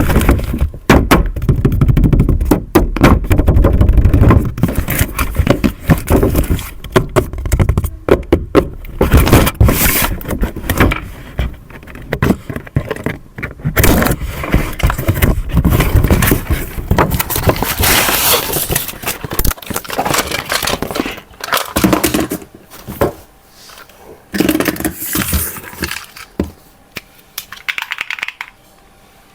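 Rapid, loud clattering, scraping and knocking of hard objects being handled or moved about, dense for the first half and growing sparser toward the end.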